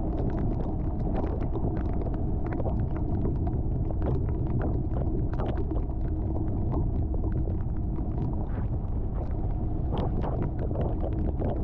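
A vehicle driving slowly on a wet gravel road, heard from inside the car: a steady low rumble of tyres and engine, with scattered sharp ticks throughout.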